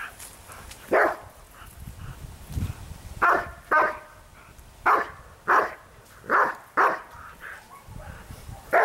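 A leashed dog barking at a man agitating it in protection training: about eight sharp barks, several in quick pairs.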